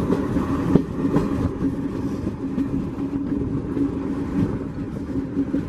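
Passenger train running along the rails, heard from aboard a moving coach: a continuous rumble with a steady low hum and irregular rattling.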